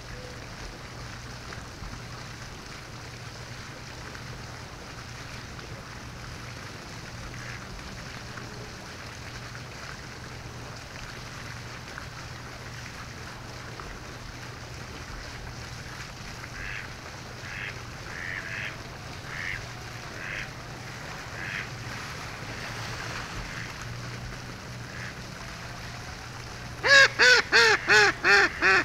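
A duck quacking: a few soft calls in the middle, then a loud series of about seven quacks near the end, each a little softer than the last.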